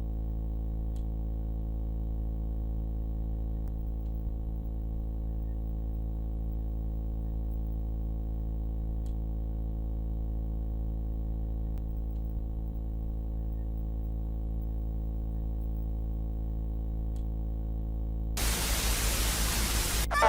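A steady low electronic drone hum with many layered tones. About eighteen seconds in, a loud burst of static hiss cuts in and runs for about two seconds.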